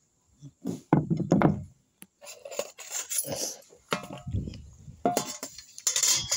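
Tableware handled on a table: a plate set down with heavy knocks about a second in, then a stainless steel bowl and a spoon clinking and scraping against the plate in a string of short rattles.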